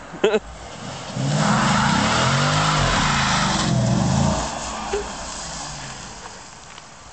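Chrysler 300 SRT-8's Hemi V8 revving during a burnout, its revs rising and falling, while the rear tyres spin and squeal loudly for about three seconds; then the revs drop and the noise dies away. A short sharp chirp just at the start.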